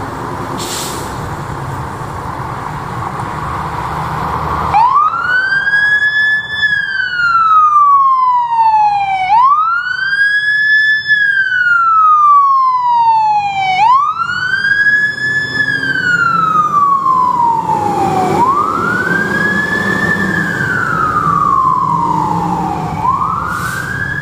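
Fire engine siren sounding a slow wail: each cycle winds up quickly and then falls away slowly, repeating about every four and a half seconds. The siren starts about five seconds in, after a steady rumble of engine and street noise.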